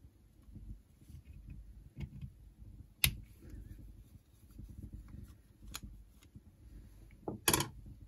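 A thin steel rod clicking and scraping against a small-engine carburettor body as a tiny jet is pushed out, with light handling of the carb. There is a sharp click about three seconds in, a softer one a little later, and a louder double click near the end.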